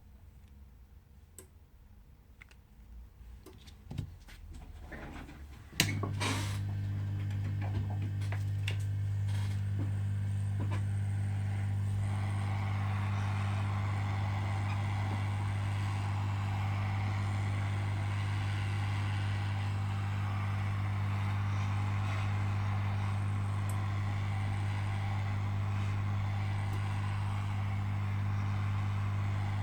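A few faint handling clicks, then about six seconds in an electric heat gun switches on and runs steadily with a low hum and a rush of blowing air that grows fuller a few seconds later, as used to soften the glued back glass of a Galaxy S7 Edge.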